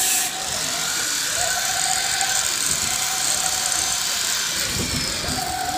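Electric actuators of a six-degree-of-freedom motion platform whining as they tilt and swing a capsule simulator cabin. The motor whine comes and goes in spurts of about a second as each movement starts and stops, over a constant hiss.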